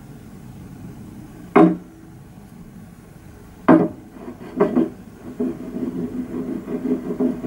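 The tail of beer pouring from a bottle into a glass, then two sharp knocks of glass set down on a wooden surface about two seconds apart. These are followed by quicker small knocks and a run of light rattling as things are handled on the surface.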